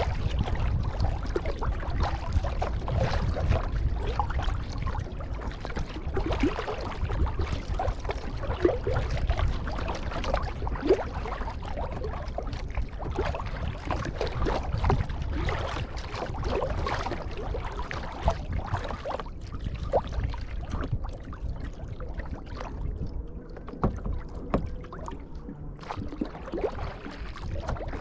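Kayak paddling: the paddle blades dip and pull through the water with splashes, drips and small gurgles. A steady low rumble runs underneath.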